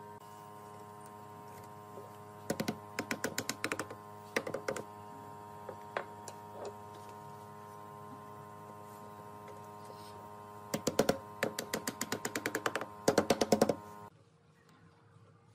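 Wooden mallet tapping thin wooden slats into a chair frame: runs of quick light knocks, several to the second, in bursts, the fastest and loudest in the last few seconds. A steady hum runs underneath, and everything cuts off abruptly about a second and a half before the end.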